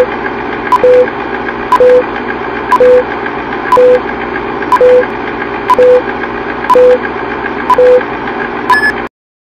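Film-leader countdown sound effect: a short beep with a click once a second over a steady hiss and crackle, ending with a higher beep and cutting off suddenly about nine seconds in.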